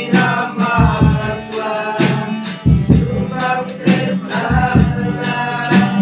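A group of young voices singing a song together, accompanied by an acoustic guitar, over a steady beat.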